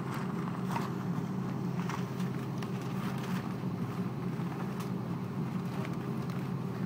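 Cabin noise of an Airbus A330-300 taxiing, its Rolls-Royce Trent 700 engines at idle giving a steady low hum, with a few faint clicks and rattles from the cabin.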